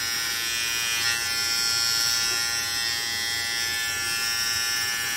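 Philips BT3221/15 cordless beard trimmer buzzing steadily as its blades, with no comb fitted, are run over chin and neck stubble.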